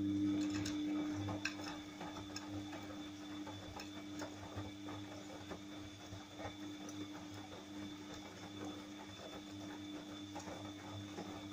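Siemens iQ300 front-loading washing machine running, its drum turning a wet load on newly fitted drum bearings: a steady motor hum with many light, irregular clicks as the laundry tumbles.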